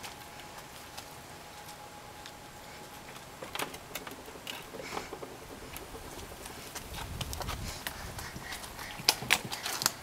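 Scattered light clicks and knocks of small plastic toys being handled, with a cluster of sharper, louder knocks near the end as a plastic child's chair is moved about.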